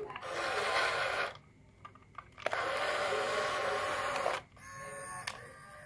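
Small electric motor of a homemade mini rice harvester model running in two bursts about a second and two seconds long, then a softer steady hum near the end.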